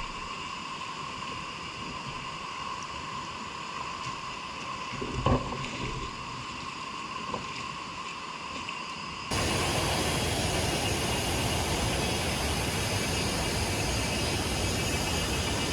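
Steady creek-side ambience with a couple of soft knocks, then about nine seconds in an abrupt switch to a louder, steady rush of flowing water.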